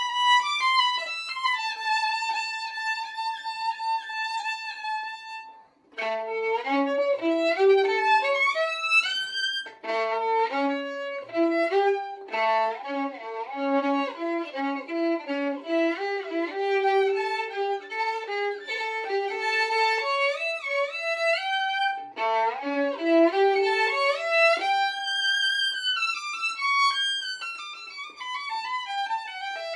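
Solo violin played with the bow: a long held high note, then after a short break quick runs of notes moving up and down in pitch, ending in a long descending run.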